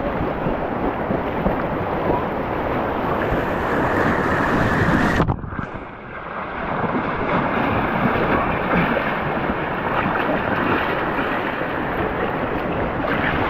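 Rushing whitewater river water splashing close to the microphone during a hydrospeed run, with wind buffeting the microphone. About five seconds in, the rush suddenly dips and goes dull for about a second before coming back.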